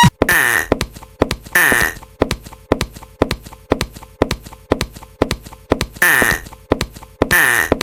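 Japanese railroad crossing warning bell ringing its steady "kan-kan" clang, about two strikes a second, with a few louder, hissier cartoon hits layered over it.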